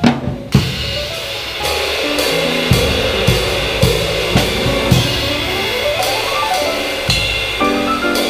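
Live music with a drum kit keeping a steady beat, about two strokes a second with cymbal, under sustained piano and ensemble chords; a couple of sharp drum hits open it.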